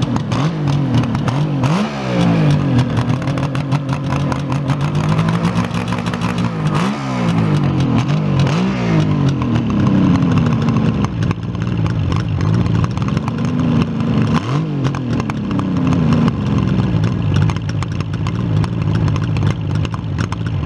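1975 Suzuki GT750's liquid-cooled three-cylinder two-stroke engine idling, heard close behind its mufflers, with about four quick blips of the throttle that rise and fall back to idle.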